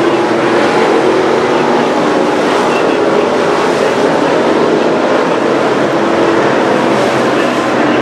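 Several street stock race cars running together on the track, their engines blending into one loud, steady sound with no let-up.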